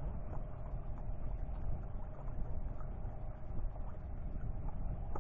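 Small boat's engine running steadily, a low rumble with a faint constant hum.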